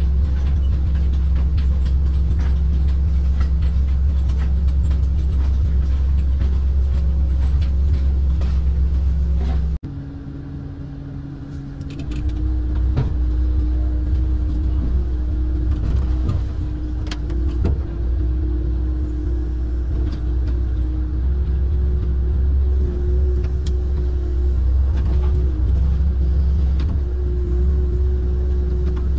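Amphibious excavator's diesel engine running steadily with a low hum, heard from the cab. About ten seconds in the sound breaks off abruptly and is quieter for two seconds, then the engine comes back. Scattered snaps and cracks come through as the bucket pushes into brush.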